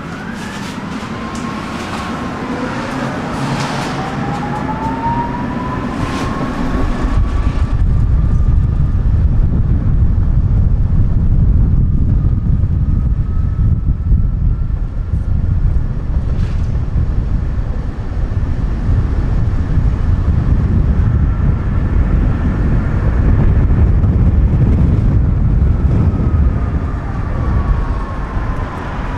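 Electric tram pulling away, its traction motor whine rising in pitch over the first several seconds, then a loud steady rumble of the wheels on the rails as it runs at speed. Near the end a whine falls in pitch as the tram slows.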